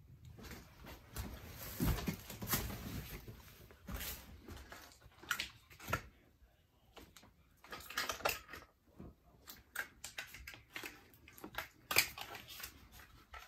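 Irregular soft clicks, taps and rustling of things being handled, with short gaps between them.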